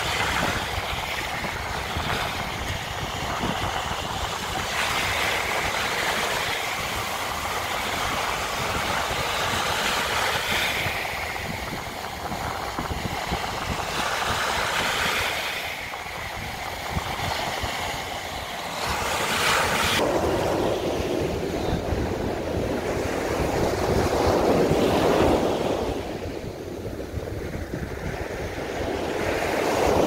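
Small waves breaking and washing up a sandy beach, the surf swelling and easing every few seconds, with wind buffeting the microphone.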